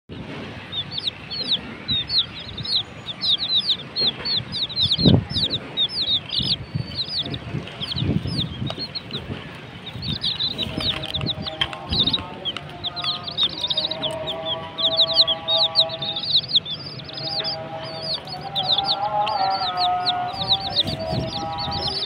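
A group of domestic chicken chicks peeping nonstop: rapid, high, short chirps that drop in pitch, several a second, with a few low bumps in the first half. Background music with a held tune comes in about halfway.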